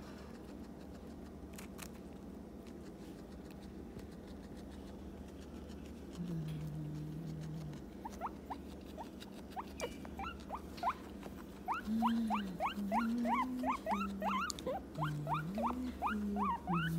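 A guinea pig eating lettuce and red bell pepper, quiet at first. From about eight seconds in comes a fast run of short rising squeaks, several a second, growing louder toward the end, over low hummed tones.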